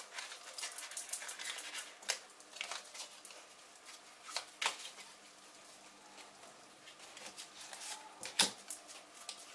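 A deck of oracle cards being shuffled by hand: soft, irregular clicking and riffling of card edges, with a few sharper snaps and the loudest one near the end.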